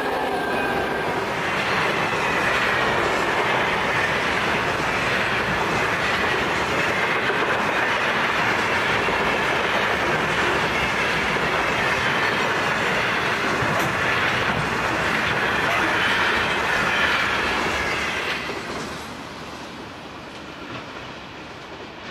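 Intermodal freight train's container wagons rolling past close by, wheels rumbling and clacking over the rail joints. The sound falls away near the end as the rear of the train moves off.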